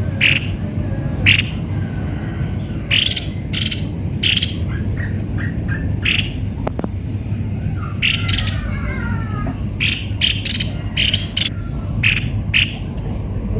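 Cucak kopi-kopi bird calling: short, sharp notes repeated at irregular spacing, with a quick falling run of notes about eight seconds in. A steady low hum sits underneath.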